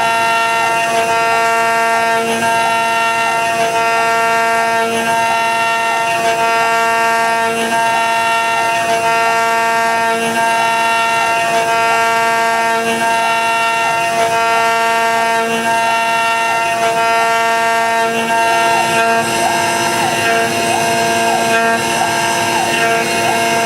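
CNC router spindle running with a steady whine while it carves a hardwood Karri neck blank, with a faint pulse repeating about every second and a quarter as the machine steps along its cutting passes.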